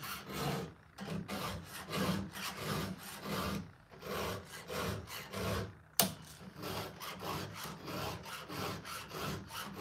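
Hand file rasping across the steel cutting teeth of a chainsaw chain in quick back-and-forth strokes: a touch-up sharpening of the teeth. Near the middle there are two short pauses, and a sharp click about six seconds in.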